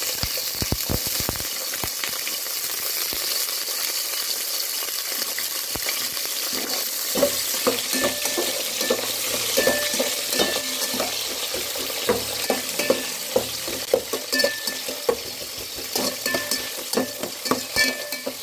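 Onions sizzling as they fry in hot oil in a metal pot, with a ladle stirring them and knocking and scraping against the pot from about seven seconds in.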